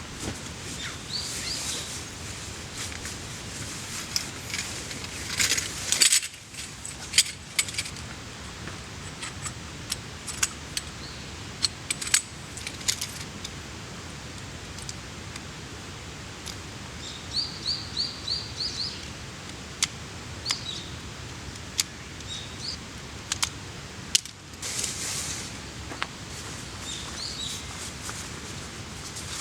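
Wood campfire crackling, with irregular sharp pops over a steady hiss, while a small bird chirps in short runs of quick high notes.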